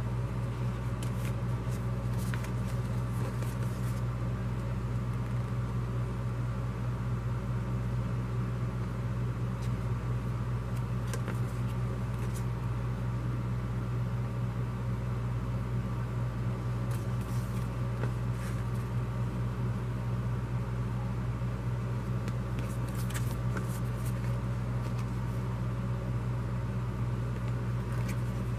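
Steady low hum, with faint rustles and taps now and then as glossy paper brochures and cards are handled.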